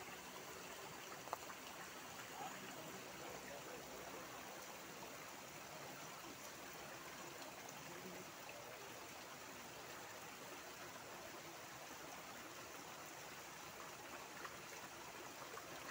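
Steady rushing of a creek, an even hiss of flowing water, with one sharp click about a second in.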